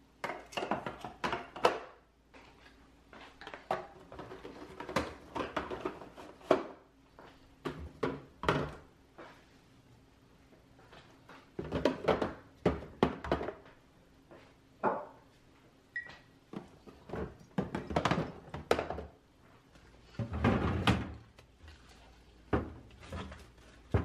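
Jars, bottles and food containers being handled and set down in a refrigerator's plastic door bins and drawers: irregular knocks and clunks, in clusters, some in quick succession.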